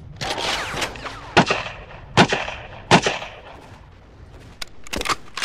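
Gunfire sound effects in a staged battle: a burst of noise at the start, then three sharp rifle shots each ringing out, just under a second apart, and fainter shots near the end.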